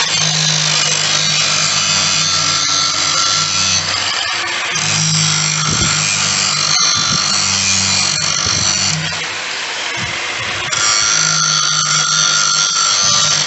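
Angle grinder running against metal with a steady motor whine and gritty, high-pitched grinding. It works in three stretches, with a short let-up about two-thirds of the way through.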